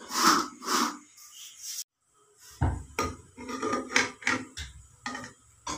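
A metal ladle knocking and scraping against a metal cooking pot while thin kadhi is stirred and ladled. Two strokes come near the start, then after a short break a quick run of clinks and knocks.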